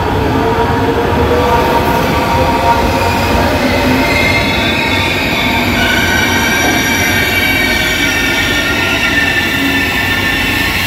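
Passenger train hauled by an E402 electric locomotive rolling slowly along the platform as it comes in to stop, with a steady rumble and high, sustained wheel and brake squeal.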